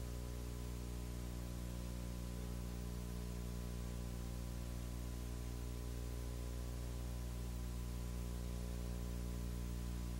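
Steady electrical hum with a stack of evenly spaced overtones, over a constant hiss: mains hum and background noise on the recording, with no speech or other sound.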